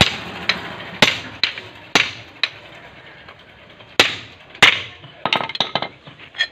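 Hammer striking the top of a steel pipe slipped over a motor rotor's shaft, driving a ball bearing down onto the shaft. Sharp metallic blows come about two a second at first, then two heavy blows about four seconds in, then lighter clinks near the end.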